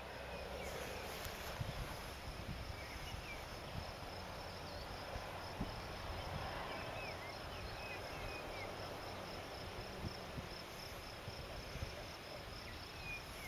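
Cricket chirping in a steady, even high-pitched pulse, with a few faint short bird chirps and a low wind rumble; now and then a soft low thump.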